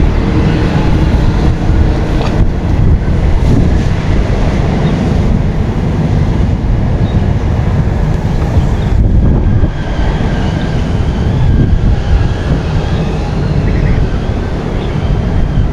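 Wind buffeting the microphone: a loud low rumble that wavers in strength throughout.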